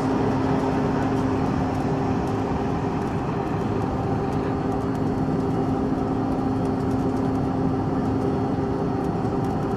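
Cabin noise of a Bombardier CRJ-700 climbing after takeoff: the rear-mounted GE CF34 turbofans drone steadily, with a few constant hum tones over the rush of airflow.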